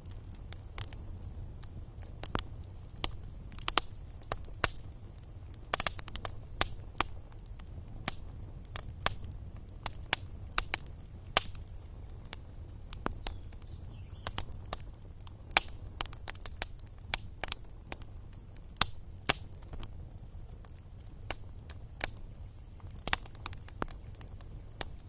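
Wood campfire crackling, with irregular sharp pops and snaps over a low rumble from the burning fire.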